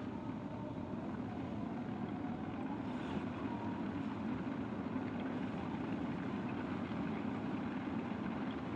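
Cat D6K2 LGP crawler dozer running steadily while working, a constant low engine-and-machine noise.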